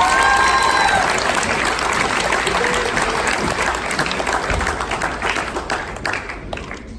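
Audience applauding, with a voice cheering at the start; the clapping dies down near the end.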